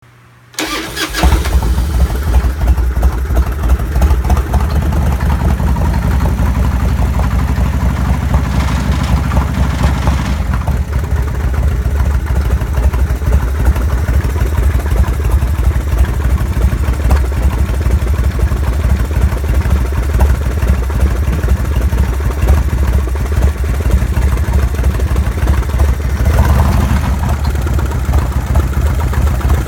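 Harley-Davidson Evolution 45-degree V-twin engine starting about half a second in, then running with an abnormal mechanical noise, picking up briefly twice. The noise points to internal damage that was found badly worn when the engine was opened up.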